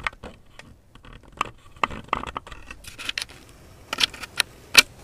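Stirring stick clicking and scraping against the side of a glass measuring cup of hot liquid soft-bait plastic as colouring is mixed in, in irregular taps with a sharper clink near the end.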